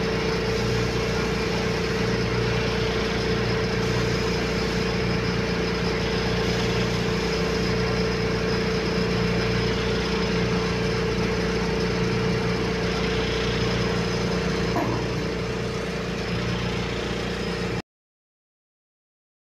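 Ship's engine-room machinery running steadily: a loud, even drone with a constant mid-pitched hum, low hums beneath it and a faint high whine. It cuts off abruptly to dead silence near the end.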